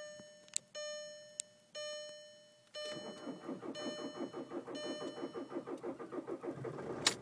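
Cold start of a 2004 Volkswagen Jetta's 1.9 TDI pumpe-düse diesel (BEW engine code). First a few chime tones ring. Then, about three seconds in, the starter cranks with about four chugs a second for roughly four seconds, and the engine catches near the end. The long crank is the hard cold start that the owner puts down to crank sensor trouble.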